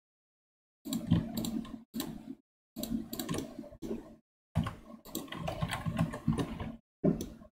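Computer keyboard and mouse clicking in several short bursts of rapid taps, with dead silence between them.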